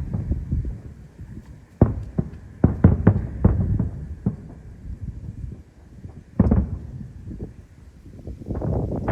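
Aerial fireworks shells bursting in a show: a string of booms and bangs at uneven intervals, with a dense run of crackling bursts near the end.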